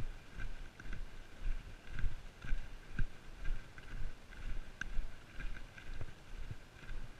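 Footsteps of a hiker walking with trekking poles on a dirt forest trail: an even pace of about two soft thuds a second, with light clicks in time with them.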